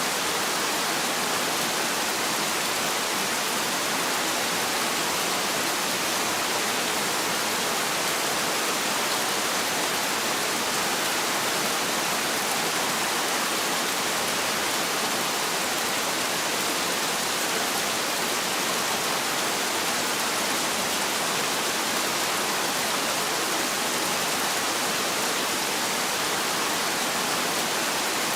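Heavy rain falling steadily: a dense, even hiss, mostly high in pitch with little low rumble, and no thunder.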